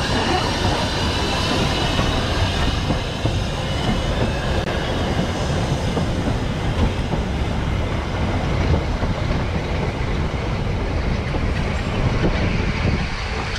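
Narrow-gauge steam train, the small locomotive Palmerston and its wooden carriages, rolling past close by. The wheels clatter over the rail joints, with a high wheel squeal in the first few seconds that fades as the carriages go by.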